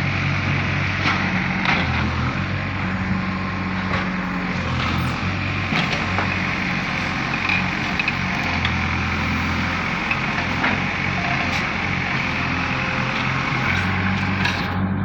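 JCB 3DX backhoe loader's diesel engine running steadily as it digs, its note swelling and easing with the load, with a few sharp knocks.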